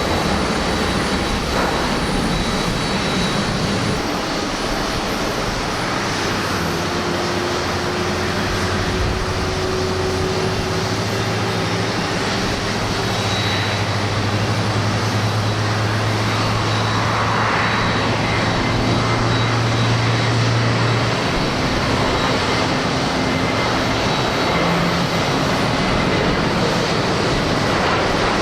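Large jet airliner taking off, its engines at takeoff thrust giving a loud, steady jet roar.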